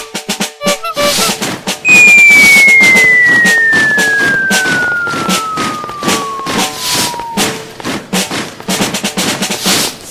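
Party sound effects: a fast, uneven clatter of drum-like hits, over which a loud whistle slides steadily down in pitch for about five seconds, starting about two seconds in.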